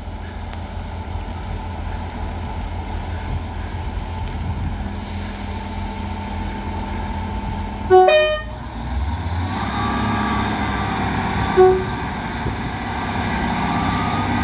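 South Western Railway Class 158 diesel multiple unit approaching the platform. Its underfloor diesel engines give a steady low rumble that grows louder in the second half. About eight seconds in it sounds a two-note horn blast, low then high, and gives a shorter low horn note a few seconds later.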